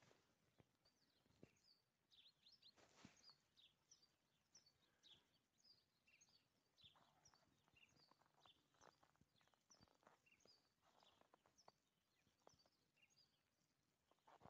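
Faint chirping of small birds, many short high calls scattered throughout, with soft irregular crunches of footsteps in snow.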